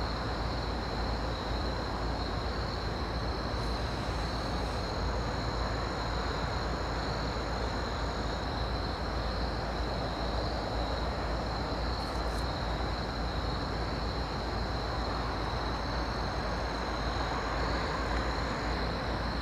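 Steady low rumble of a distant approaching CSX diesel freight train, under a continuous high trilling chorus of night insects.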